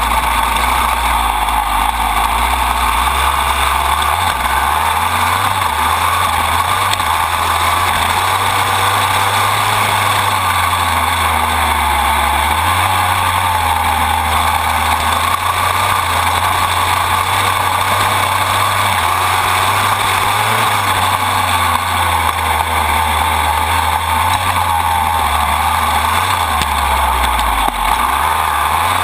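Dirt bike engine running hard as the bike is ridden, its pitch rising and falling every few seconds with throttle and gear changes. It is heard close up from low on the frame beside the drive chain, mixed with steady rushing noise.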